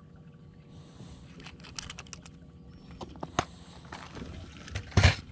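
Small clear plastic compartment tackle box being handled, its lid and the jig heads inside clicking and rattling in a scatter of light ticks, with one sharper, louder click near the end.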